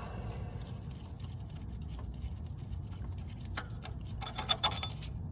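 Metal clicking and clinking as the crank hub installer tool's nut, washers and threaded rod are unscrewed and handled, with a few louder ringing clinks near the end, over a low steady hum.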